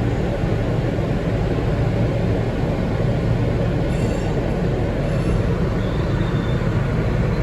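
R160B subway train running along the track: a steady, loud rumble of wheels and running gear, with faint brief high-pitched tones about four seconds in and again a second later.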